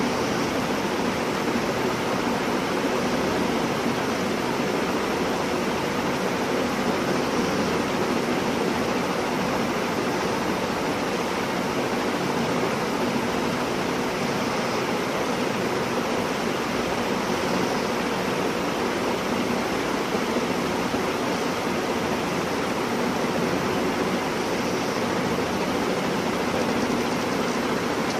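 Steady, unchanging hiss of noise with no distinct events in it.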